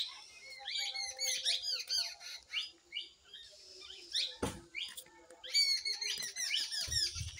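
Many small birds chirping and calling in quick, overlapping short notes, in two busy spells, with a single thump about halfway through.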